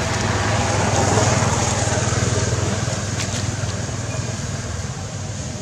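A motor engine running with a steady low drone and hiss, swelling about a second in and then slowly fading.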